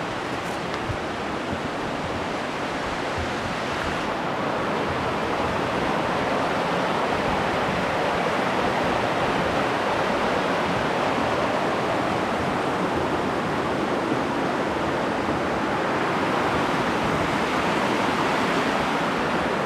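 Steady rushing of water from a cascading waterfall, a continuous even roar that grows slightly louder a few seconds in.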